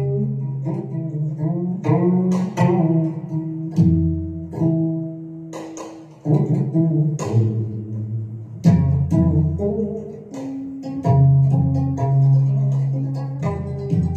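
Instrumental music played on a plucked string instrument: notes picked one after another, some sliding in pitch, over a low ringing bass.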